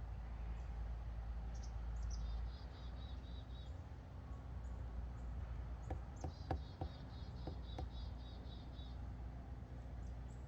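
A small bird sings two trilled phrases of quick repeated high notes, one about two seconds in and one a little past the middle, over a steady low rumble. A few light clicks fall around the second phrase.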